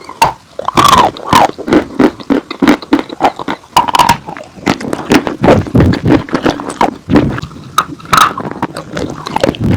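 Dry edible chalk and clay being bitten and chewed close to the microphone: irregular crisp crunches and snapping cracks, with a few louder bites along the way.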